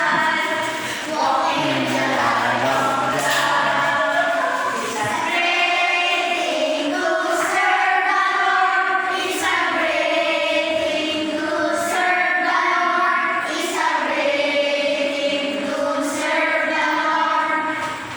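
Loud videoke (karaoke) singing: amplified sung vocals over a backing music track, with regular percussion hits about every two seconds.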